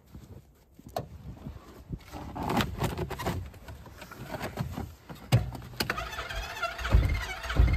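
Crunching footsteps and handling noises in snow, then an engine being cranked and starting up near the end.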